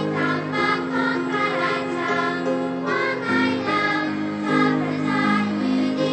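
Children's choir singing a Thai song with piano accompaniment, holding long notes.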